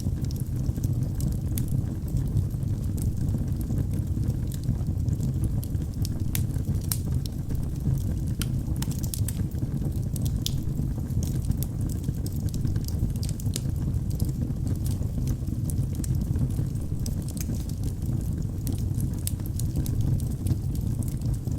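Wood fire burning in a fireplace: a steady low rumble of flames with frequent irregular sharp crackles and pops from the burning wood.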